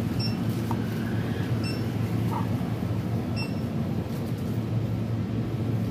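Three short high electronic beeps, one to two seconds apart, like a checkout barcode scanner, over a steady low electrical hum from the shop's display fridges and machines.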